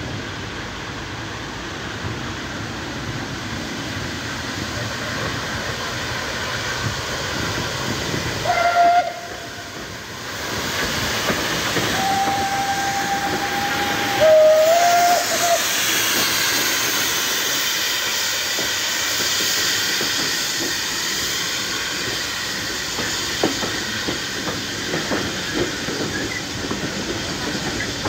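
Steam locomotive running slowly past, blowing its whistle: one short blast about nine seconds in, then a longer blast and a slightly lower note around twelve to fifteen seconds. After that, a loud hiss of escaping steam as the engine draws by, with a few knocks near the end.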